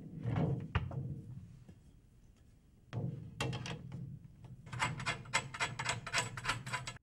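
A 16-inch floor tom set down with a hollow thud that rings briefly, then its metal hoop and steel tension rods fed in and spun into the lugs by hand, giving a quick run of light metallic clicks and rattles, about five a second near the end.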